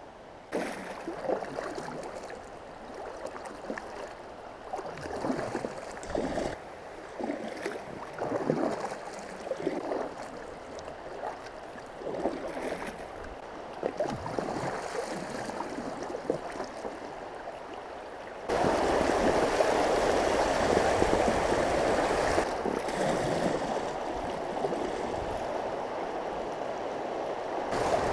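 Paddle strokes splashing and water gurgling around an inflatable kayak, in irregular bursts. About two-thirds of the way in it gives way suddenly to a steady, louder rush of river water running over a shallow riffle.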